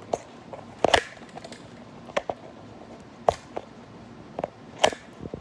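Scattered clicks and knocks of a phone being handled and fitted onto a tripod, about seven in all, the loudest about a second in.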